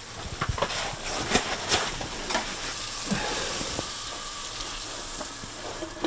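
Broccolini frying in butter in a pan, sizzling steadily, with a few light knocks and clinks of cookware in the first couple of seconds.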